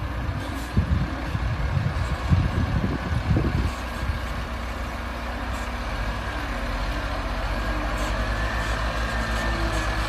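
Diesel engine of a heavily overloaded Dongfeng Chenglong dump truck labouring up a steep dirt grade, a steady low pulsing under load. Irregular low thumps sound through the first few seconds, and a faint whine rises slightly in pitch from about halfway on.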